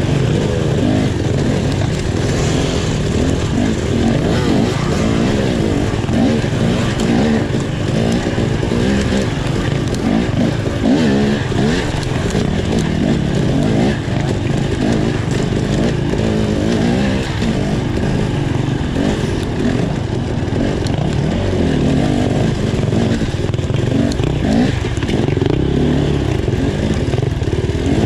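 Off-road dirt bike engine revving up and down as it is ridden hard along a trail, its pitch rising and falling continually.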